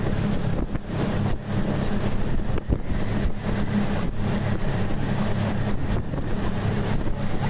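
Tour boat's engine running steadily, with wind buffeting the microphone.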